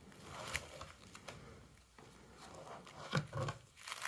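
Faint handling noise from plastic binder sleeve pages of trading cards being shifted and turned: soft rustling and rubbing with a few light clicks.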